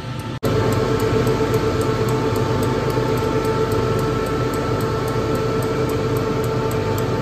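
Diesel injector test machine running: a steady mechanical hum with a few fixed tones and a faint, fast, regular ticking. It cuts off abruptly just before half a second in and comes back louder.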